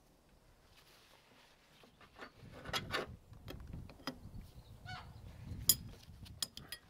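Steel hydraulic hose fittings and an open-ended spanner clinking and scraping as the hoses are connected and tightened on a hydraulic spool valve. It is a series of irregular metallic clicks and knocks that starts about two seconds in, with the sharpest click about two-thirds of the way through.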